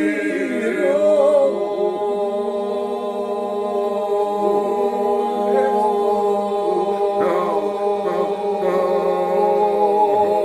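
Albanian Vlora-style polyphonic folk song sung a cappella: lead voice, thrower and breaker parts holding long notes over a steady vocal drone (iso), with small ornamented turns. The held chord breaks off near the end.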